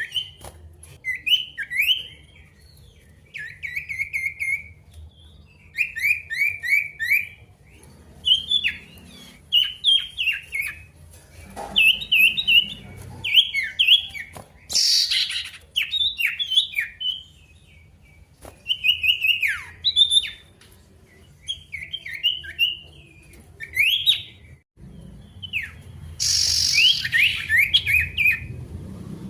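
A male sirtu songbird singing in full voice, short rapid phrases of sweeping chirps repeated every second or two, with two brief harsh hissing bursts between them.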